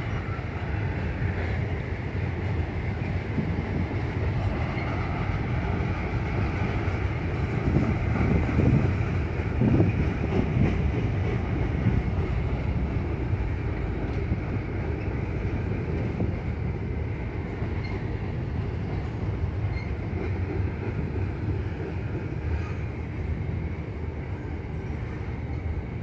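CN intermodal freight train's container cars rolling slowly past: a steady rumble of wheels on rail, a little louder about eight to ten seconds in.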